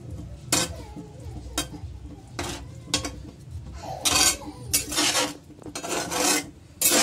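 Metal spoon stirring a thick gravy of stuffed pointed gourds in a honeycomb-textured steel kadhai, scraping and knocking against the pan in repeated strokes, with longer scrapes in the second half.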